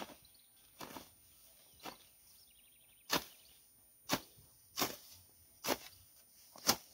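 Hand hoe chopping into the soil and weeds, eight strokes at about one a second, the strokes louder from about three seconds in.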